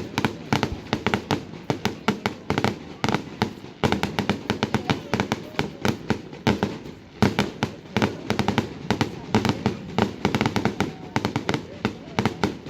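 Aerial fireworks going off in a rapid, continuous barrage of bangs and crackling pops, many per second, with a rumbling underlay.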